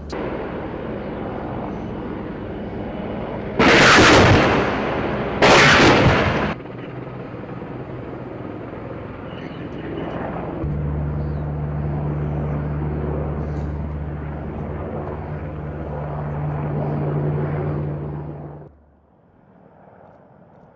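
AH-64 Apache helicopter's engines and rotor running with a steady low hum. The hum is broken about four and five and a half seconds in by two loud bursts of weapon fire, each about a second long. The hum shifts in pitch about ten seconds in and cuts off abruptly near the end.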